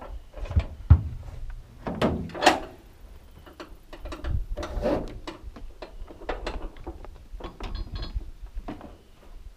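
Tie-down straps being tightened on a dirt bike in a pickup bed: a run of clicks and rattles from the strap buckles, with a few heavy thumps in the first second or so.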